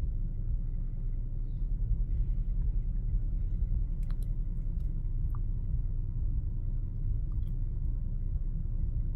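Steady low rumble of a car idling, heard from inside the cabin, with a few faint clicks about four seconds in.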